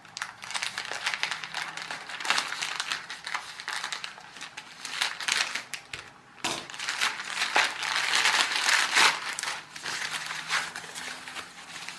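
Plastic mailing bag and its white inner wrapping crinkling and rustling as a parcel is cut open and unwrapped by hand, with a short lull about halfway.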